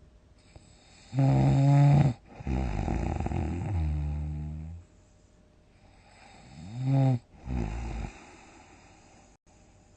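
Loud snoring in a run of separate snores. A short pitched snore comes about a second in, followed by a longer rattling snore that drops in pitch. Two shorter snores come around seven seconds, the first rising and then falling in pitch.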